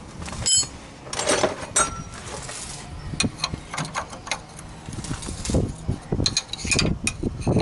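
Metallic clicks and clinks of hand tools working on the bottom end of a Ford Transit's Sierra 1.6 petrol engine as the crankshaft is turned by hand with the oil pan off, to check the connecting-rod bearings for play. A ringing clink about half a second in, then a run of sharp clicks and duller knocks.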